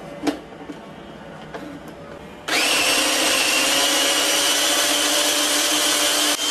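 Ravelle electric food chopper switching on about two and a half seconds in and running at a steady whir, mincing cubes of raw chicken breast. Before it starts, a few plastic clicks as the jar is seated on the motor base.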